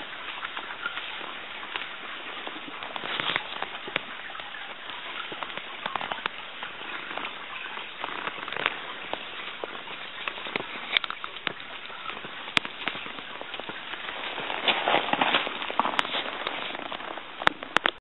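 Steady rushing of a babbling brook, with frequent sharp clicks and crackles on top, thickest about fifteen seconds in.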